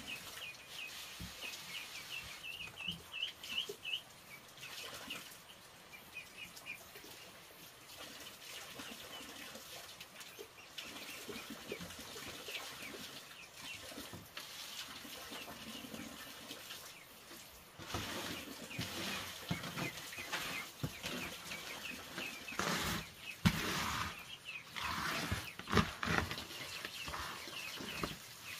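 Poultry chicks peeping in quick runs of short, high chirps. In the second half there are louder bursts of rustling and scuffling, with a couple of sharp knocks.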